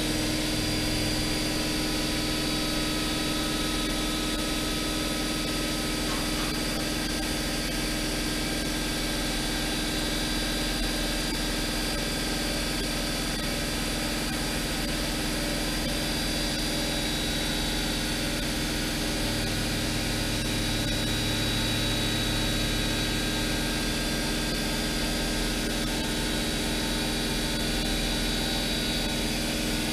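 Fadal VMC 6030 CNC vertical machining center running, a steady machine hum and whine of several tones. A lower hum comes in briefly about a second in and again for a few seconds about two-thirds of the way through.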